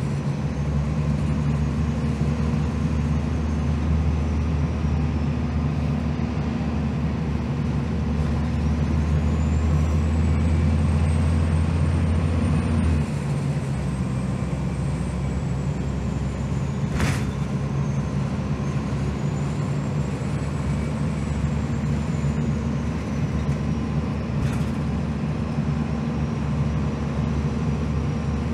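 Cummins ISM diesel engine of a 2001 Gillig Phantom transit bus with Allison B400R transmission, cruising at freeway speed, heard from inside the cabin with road noise. It is a steady low drone whose deepest part drops off about halfway through, with a single sharp click a few seconds later.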